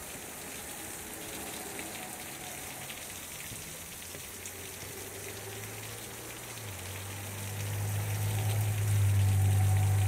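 Water trickling and dripping at a frozen waterfall, an even patter and hiss. A low steady hum comes in about halfway and grows louder near the end.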